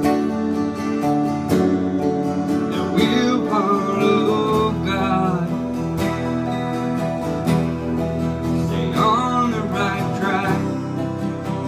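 Small country band playing: two acoustic guitars strumming chords alongside an electric guitar, with a wavering melody line coming in over the top twice.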